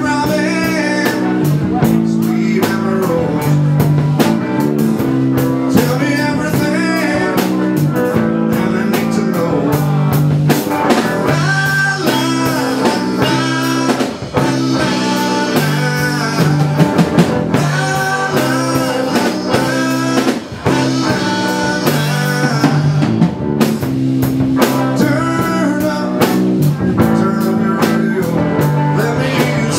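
Live dance band playing, with electric guitar over bass and drum kit.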